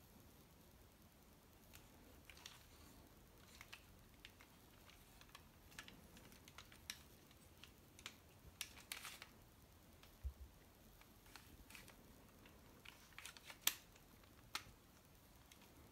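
Faint, scattered clicks and small rattles of a Lego M1911 model pistol's plastic bricks being handled, with one sharper click near the end.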